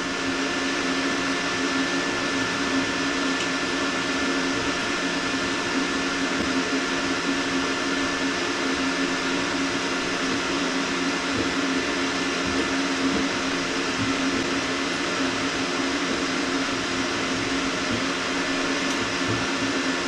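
Steady machine hum with a whir and a few constant tones, unchanging throughout.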